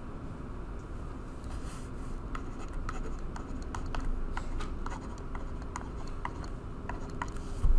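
Pen stylus tapping and scratching on a touchscreen as words are handwritten: an irregular string of light clicks, over a low steady background hum. A louder low thump comes at the very end.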